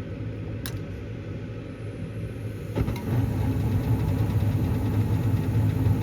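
Gas furnace start-up: the draft inducer motor hums steadily, a sharp click comes about a second in, and near three seconds the burners light on the newly fitted gas valve, the sound jumping suddenly to a louder, steady burner rumble.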